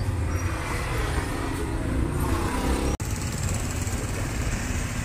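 Road traffic of motorbikes and cars running past, a steady low rumble. The sound drops out for an instant about three seconds in.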